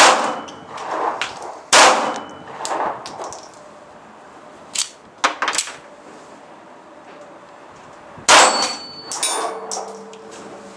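Kahr P380 pistol firing .380 ACP: loud sharp shots at the start, about two seconds in and about eight seconds in, each ringing out, with a few quieter cracks in between. The flat-tipped truncated ammunition is failing to feed and binds up on the feed ramp.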